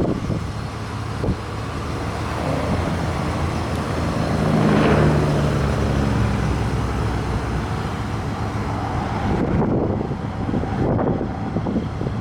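A pickup truck's V8 engine running as the truck drives past, growing louder to a peak about five seconds in and then fading away.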